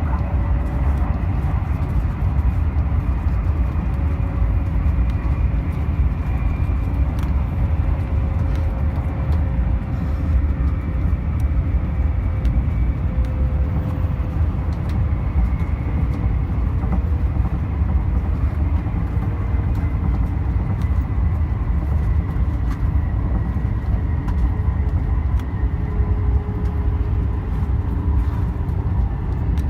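Steady low rumble of a Joetsu Shinkansen train running, heard inside the passenger car, with a faint whine that slowly falls in pitch.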